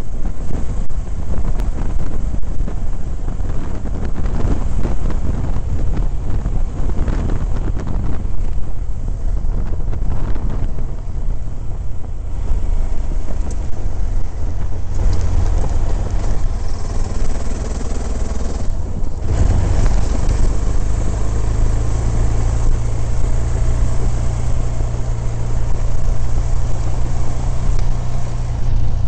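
Motorcycle under way on a gravel road: a steady engine drone beneath heavy wind buffeting on the microphone.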